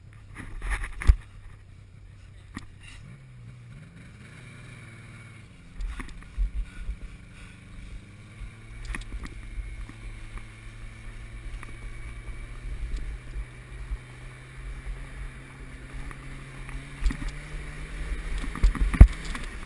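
Snowmobile engine running at a steady low pitch, its note rising about three seconds in and again near the end, with a few sharp knocks just before the end.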